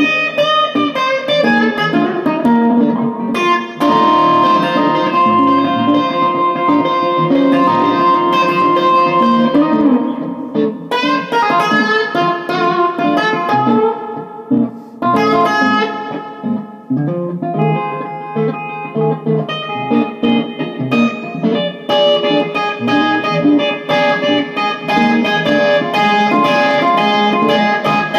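Gibson Les Paul Standard electric guitar played through an Orange OR15 valve amp, picking blues phrases of single notes and chords with a few short breaks between phrases.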